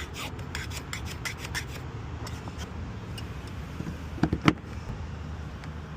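Locksmith's hand tools at work: a quick run of small clicks and scraping, then a few sharp knocks about four seconds in, over a steady low hum.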